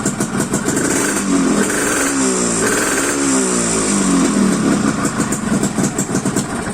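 Yamaha RXZ two-stroke single-cylinder motorcycle engine warming up: it idles with a rapid pulsing beat, is revved up and down a few times in the middle, and settles back to idle.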